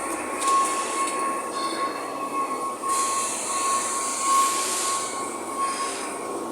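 Fabrication shop machinery running: a steady high whine over a hiss that swells and fades several times.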